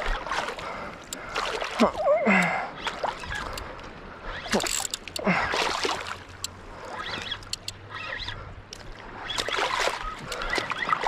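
Water sloshing and lapping in irregular surges, with short splashes.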